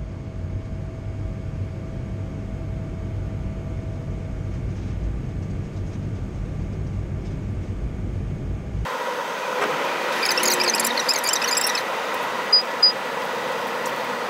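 Airliner cabin noise in flight: a steady low rumble. About nine seconds in it changes abruptly to a thinner, hissier cabin sound, with a brief high-pitched rattle and then two quick high beeps.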